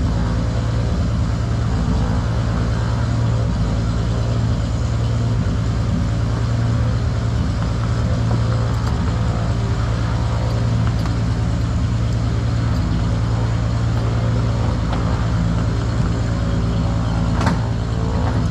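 A steady low mechanical drone at a constant pitch, with a brief click about a second before the end.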